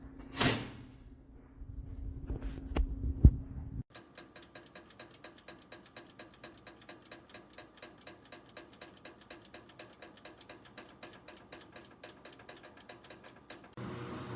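Mechanical dial timer of a toaster oven ticking evenly, about five ticks a second. It follows a few seconds of handling sounds: a loud knock-like sweep and a sharp click over a low hum.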